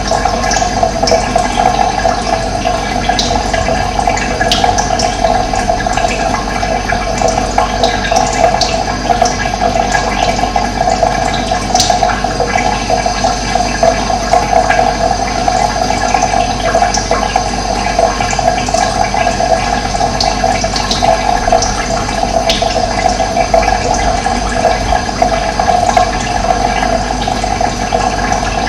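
Running water flowing steadily in an even rush, with a few short, faint bird chirps scattered over it.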